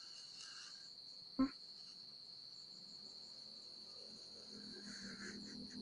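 Steady high-pitched chirring of crickets in the background, with the faint scratch of a felt-tip marker drawing on paper. One brief short sound about a second and a half in.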